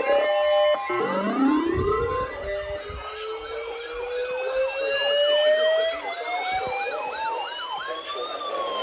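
Several sirens winding up together, overlapping rising wails at different pitches. One climbs slowly, peaks near the end and starts to fall, while another warbles rapidly up and down for a few seconds in the middle. A steady high tone sounds under them for the first two seconds or so.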